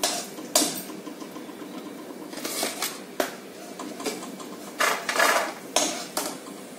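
A spoon scraping and knocking against a metal kadhai in a string of separate strokes, with a cluster near the end, as fried dry fruits are lifted out of hot ghee.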